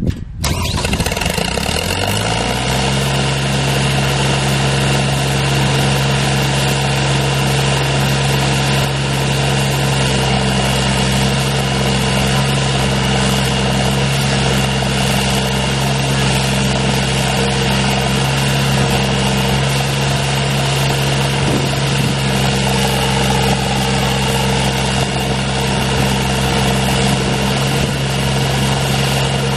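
Ditch Witch 3700 trencher's engine starting: it catches at the opening, climbs in speed over about two seconds, then runs steadily at an even speed.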